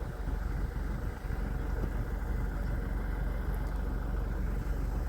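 Small truck's engine running steadily at low revs, a low even hum.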